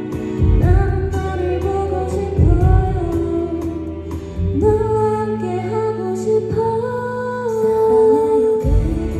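A woman singing a slow ballad live into a microphone over instrumental accompaniment, with long held notes.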